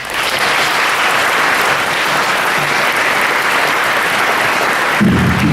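Audience applauding in a large room at the close of a spoken-word poem, starting all at once and holding steady; low thudding joins near the end.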